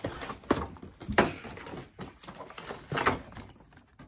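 Cardboard doll packaging scraping and rustling as it is worked out of its box, with a few sharp knocks and cracks, the loudest about a second in and again about three seconds in.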